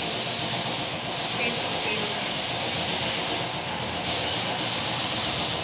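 Compressed-air paint spray gun hissing as paint is sprayed onto a wall, cutting out for short moments a few times as the trigger is let go, over a steady low hum.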